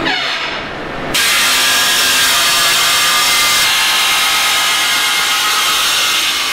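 A power saw running and cutting through wooden floor slats, with a steady motor whine under the noise of the cut. It starts abruptly about a second in, after a brief falling whine at the very start.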